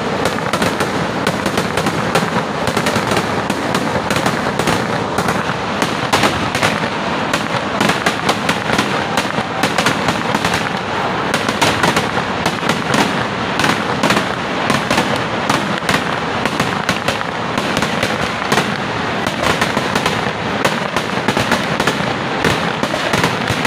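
Aerial fireworks shells bursting in a dense, unbroken barrage, with many closely packed bangs and crackles throughout.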